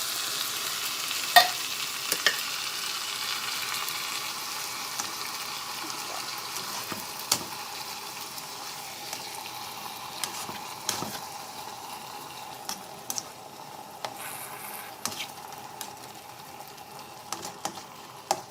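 Fish in tomato sauce with pineapple chunks sizzling in a pan as it is stirred, with sharp clicks of the utensil against the pan, the loudest about a second and a half in. The sizzle slowly fades.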